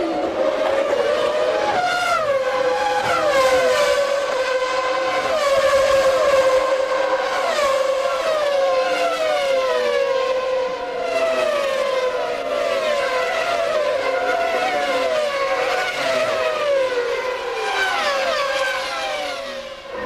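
Several 1996 Formula One cars' high-revving engines running at full power, their pitch sliding down about once a second, over and over, with one steady high engine note running underneath.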